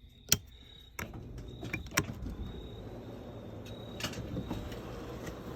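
A sharp click, then about a second in the motorhome's electric slide-out motor starts and runs steadily as the room moves, with a sharp knock about two seconds in.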